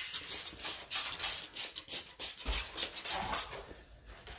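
Background music with a fast shaker-like rhythm, about three strokes a second, that thins out near the end.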